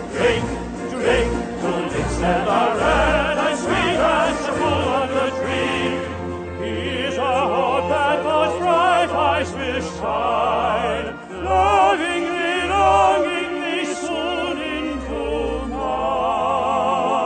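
Background music: operatic singing with strong vibrato over instrumental accompaniment. The voice comes in about six seconds in.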